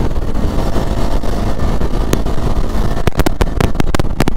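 Motorcycle riding at about 80–90 km/h: a steady engine rumble under heavy wind rush on the rider's microphone, with many sharp crackles of wind buffeting that bunch up about three seconds in.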